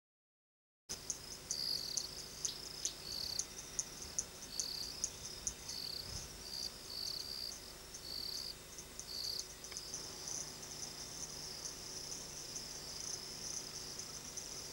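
A dense chorus of chirping insects: a high, steady shrill with repeated short pulsing notes. It starts abruptly about a second in.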